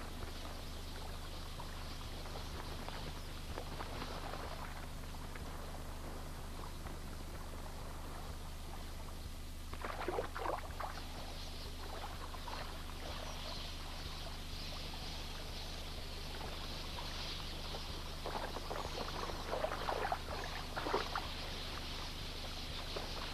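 Water splashing and sloshing at a waterhole crowded with drinking and bathing red-billed queleas, in two louder bouts: one about ten seconds in and another near the end. A steady low hum runs underneath.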